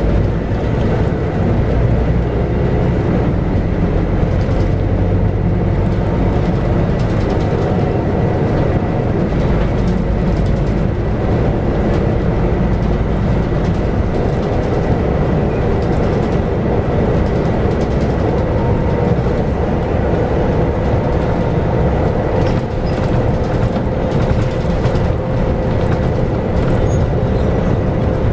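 Scania K94UB bus under way, heard from inside: its 9-litre six-cylinder Scania DC9 diesel and ZF five-speed automatic gearbox make a steady low drone. A faint steady whine grows clearer in the second half.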